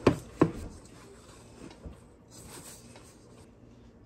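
Dough being stirred in a stainless steel bowl with a wooden-handled dough whisk: two sharp knocks of the whisk against the bowl right at the start, then faint scraping and rubbing.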